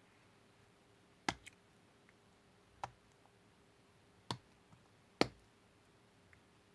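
A few separate sharp clicks and knocks, about five spread over several seconds, from a small plastic breather check valve module being worked back into a chainsaw tank cap.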